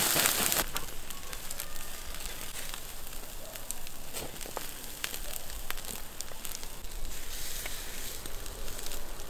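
Raw lamb ribs on a wire grill over a charcoal fire: a steady hiss with scattered crackles and pops from the coals and the meat. A louder hiss at the start fades within the first second.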